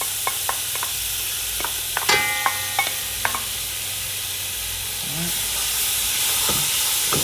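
Green seasoning sizzling steadily in hot oil with fried onion and spices in a cooking pot, with a few sharp clinks of a stirring spoon against the pot, one ringing briefly about two seconds in.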